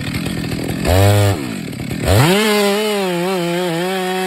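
Two-stroke chainsaw: a short throttle blip about a second in, then revved up to full throttle and held at a high, steady pitch with slight dips.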